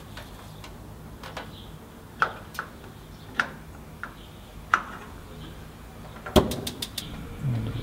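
Campingaz gas grill: a few separate sharp metal clicks and knocks as the lid is opened and a control knob is worked, then a quick run of about six ignition clicks as the burner is lit.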